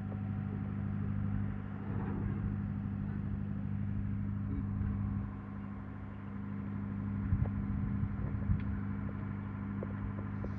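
Unloaded truck's engine running steadily with a low drone, with a few short knocks and rattles over it.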